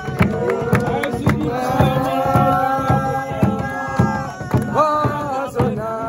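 A group of people singing together in long held notes, with steady rhythmic hand-clapping.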